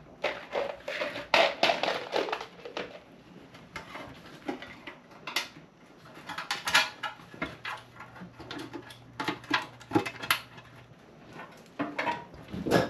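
Irregular metallic clinks and clatter, a run of short sharp knocks: hand tools and metal parts being handled during truck transmission work.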